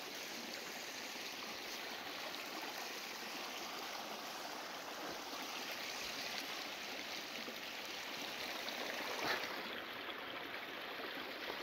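Mountain spring water running steadily, an even rushing sound, with one brief knock about nine seconds in.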